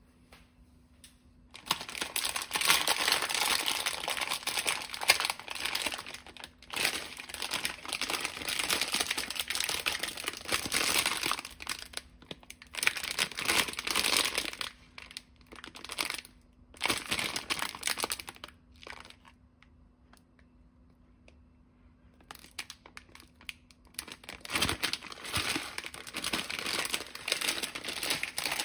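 Plastic instant-noodle packet crinkling in bursts as it is handled and turned over, with a pause of a few seconds about two-thirds through; near the end the packet is torn open.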